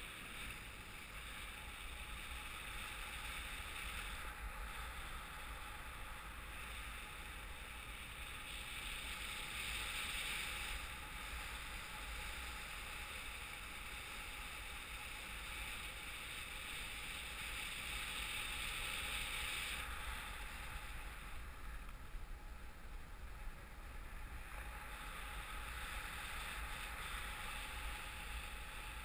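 Steady rush of in-flight airflow over a paraglider-mounted action camera, a noisy hiss with a low rumble that swells and eases every few seconds.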